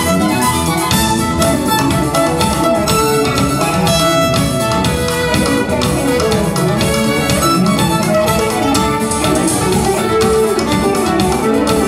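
Amplified violin playing a rock instrumental over a backing with drums and a steady beat.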